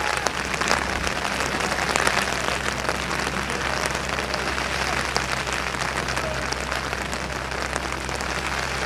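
Spectators clapping and cheering steadily as rowing crews race past, a dense spatter of claps.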